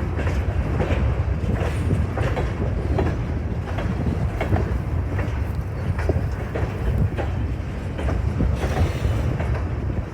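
Freight grain train rolling past, its steel wheels clicking over rail joints and gaps in a steady irregular clatter above a continuous low rumble.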